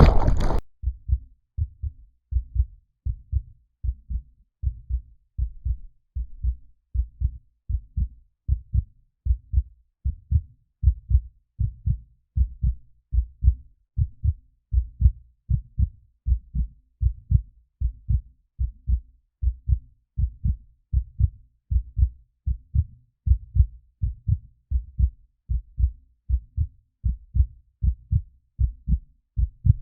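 Steady low thumping beat, about two thumps a second, paired like a heartbeat, after a short loud burst at the very start.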